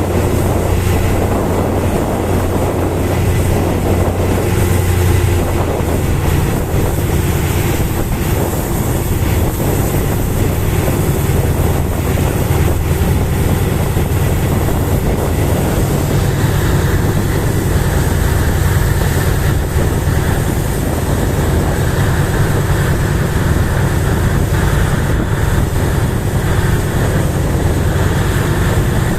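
Motor ship's engine running with a steady low drone, mixed with wind and sea noise.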